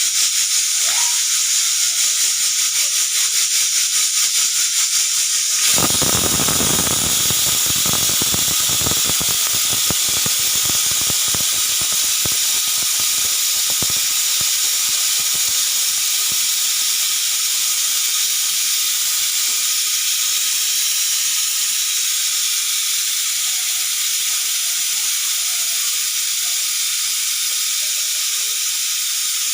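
Pressure cooker whistling: steam jets out of the whistle in a loud, continuous high hiss. A dense rattling joins about six seconds in and dies away over the next ten seconds.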